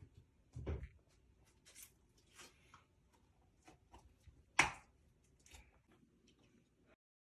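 Scattered light clicks and knocks of small objects being handled, with a dull thump about half a second in and a sharper knock about four and a half seconds in; the sound cuts off to silence just before the end.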